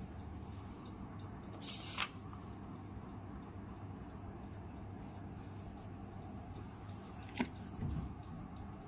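Quiet room tone with a steady low hum, broken by two short sharp clicks or rustles, one about two seconds in and one near the end.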